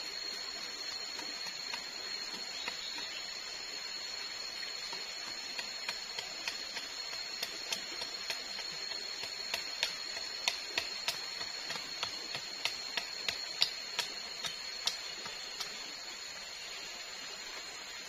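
A run of light, sharp taps on bamboo, about two a second, starting some five seconds in and stopping a few seconds before the end, as leftover nails are worked out of old bamboo poles. Behind them is a steady high-pitched hum of forest insects.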